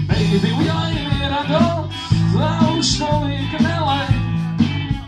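A rock band playing live, with guitar, bass and drums and a bending lead melody over a steady beat.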